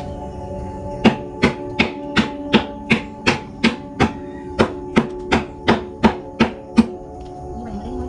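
A blade chopping into kanikonna (golden shower tree) wood with rapid, even blows, about three a second, stopping shortly before the end. A steady hum runs underneath.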